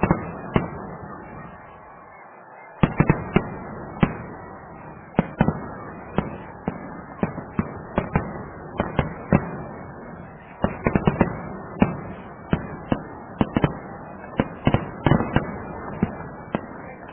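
Fireworks going off in an irregular, continuous series of sharp bangs over a steady background rumble. After a brief lull near the start, the bangs come faster, at times several a second.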